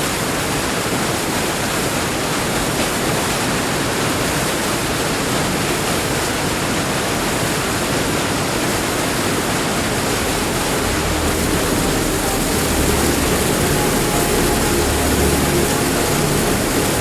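Steady rushing of a large mountain waterfall, an even wash of falling-water noise. Faint sustained musical tones come in past the middle.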